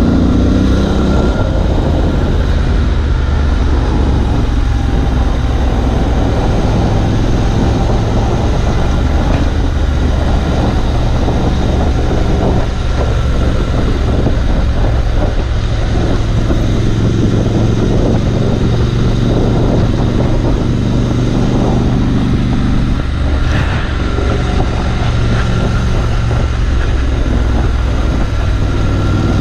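Triumph Scrambler 1200 XE's 1200 cc parallel-twin engine running steadily under way, with wind noise over the microphone.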